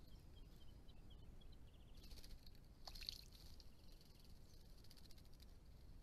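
Near silence broken by faint, high chirps of small birds, a brief buzzy trill about two seconds in, and one sharper call about three seconds in.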